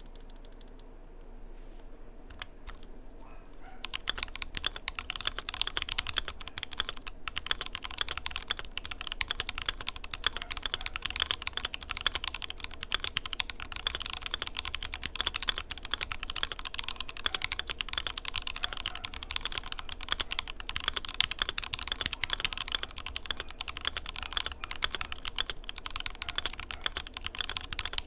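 Keychron Q2 mechanical keyboard in stock, unmodified form being typed on: after a quieter few seconds, steady fast typing sets in, a dense run of key clacks.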